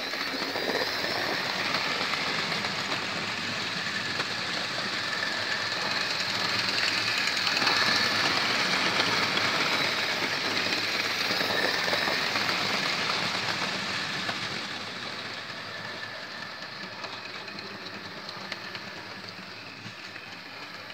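Hornby OO-gauge model locomotives on 0-6-0 motorised chassis running on track, pulling wagons: a steady small-motor whine with wheels rattling over the rails. It grows louder in the middle as a train passes close and fades near the end.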